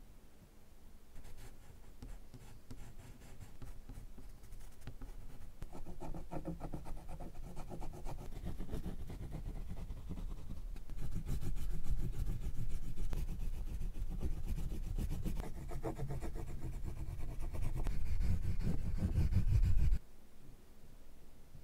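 Oil pastel sticks rubbing and scratching across paper in quick, repeated colouring strokes. The sound grows louder as the strokes get heavier, then stops abruptly about a second and a half before the end.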